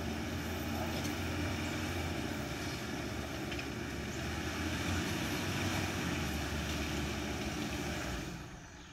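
Toyota Hilux 2.4-litre turbo-diesel engine working under load as the truck climbs a muddy slope: a steady drone with a low hum that falls away sharply about eight seconds in.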